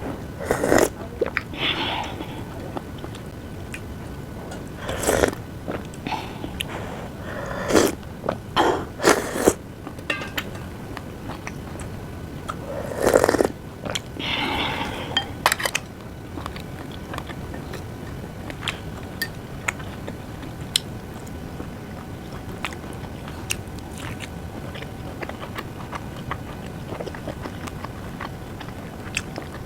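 Close-miked eating of a Korean home meal of seaweed soup, rolled omelette and rice: chewing, with sharp clicks of utensils on dishes. It is busier in the first half, then thins to faint, scattered ticks.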